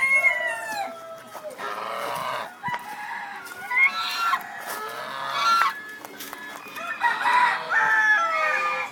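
Roosters crowing several times in turn, with hens clucking in between.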